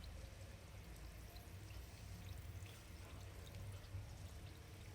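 Samosas frying gently in oil that is not very hot: a faint, steady sizzle with scattered small pops.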